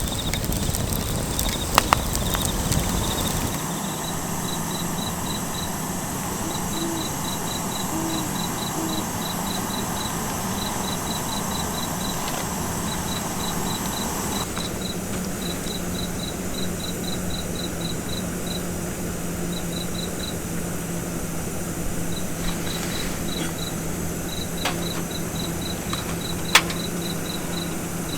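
Crickets chirping in quick short pulses, several a second, over a steady low hum, with an occasional sharp click.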